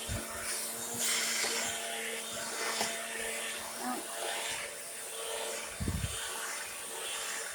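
Leaf blower running steadily, a motor whir over a rush of air, with a brief low rumble about six seconds in.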